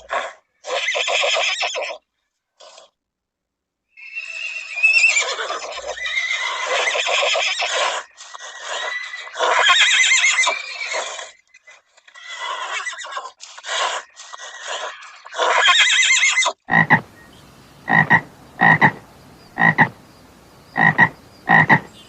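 A series of harsh, raspy animal calls, broken by a short pause. Near the end they give way to a run of about seven short calls, evenly spaced.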